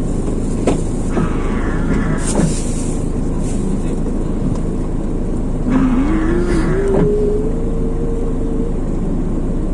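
Motor vehicle engine running with a steady low rumble, its pitch rising about midway as it speeds up, then holding steady for a few seconds.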